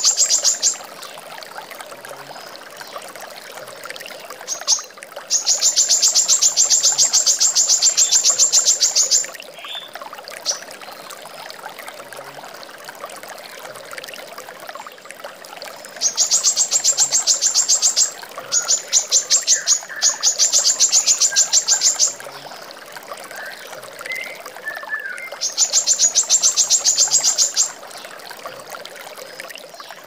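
Female brown-throated sunbird singing runs of very rapid, evenly spaced sharp high notes, each run lasting about two to four seconds with pauses between, over a steady background hiss. A few faint, lower, short chirps come in the second half.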